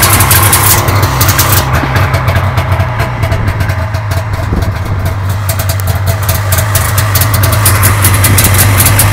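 1994 Polaris Indy Supersport 440's fan-cooled two-stroke twin engine idling steadily: a loud low hum with a rapid, uneven crackle over it. It starts and runs without choke.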